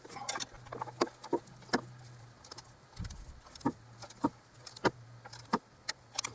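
Sharp, irregular clicking of a ratcheting torque wrench as intake manifold bolts are run down to 44 inch-pounds, over a faint steady low hum.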